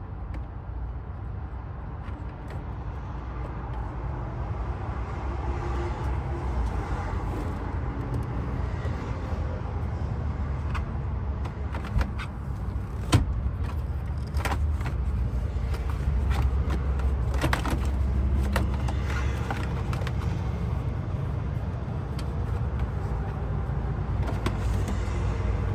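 Scattered sharp clicks and knocks from tools and plastic and metal parts as a Ford F-150's ignition lock and steering column trim are worked on. The sharpest click comes about halfway through. A steady low outdoor rumble, from traffic or wind, runs underneath.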